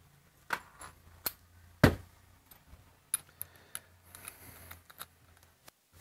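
Clicks and knocks of cordless power tools being handled and swapped between timed runs, with one sharper knock about two seconds in, over a faint low hum.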